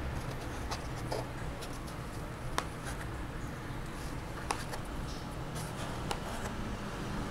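Small magnetic game tokens clicking as they are set down and slid on a magnetic game board, about half a dozen light, irregular clicks with faint handling rustle between them.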